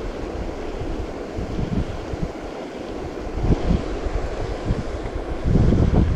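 Wind buffeting the microphone in irregular low rumbling gusts over a steady rush of noise, the gusts growing stronger about five and a half seconds in.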